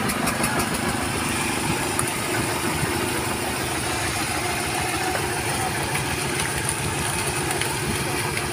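An engine aboard a fishing boat running steadily: a low drone with a fast, even pulse and no change in speed.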